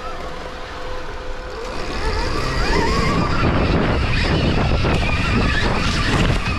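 Stark VARG electric dirt bike's motor whining, the whine rising in pitch as the bike accelerates about two seconds in. Over it is a heavy low rumble of tyres and wind as the bike pushes into brush.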